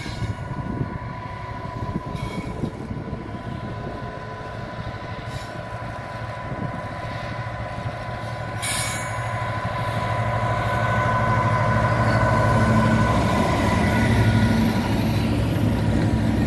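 Two diesel locomotives, a Class 66 leading Class 37 D6732, run toward the listener hauling a passenger train. A steady engine drone with a held higher tone grows louder as they draw close, peaking as the locomotives pass just before the end.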